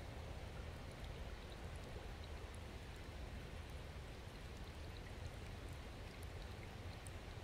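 Small shallow stream running as it refills after a blockage upstream was cleared: a faint, steady rush of flowing water with scattered small ticks of trickles and bubbles.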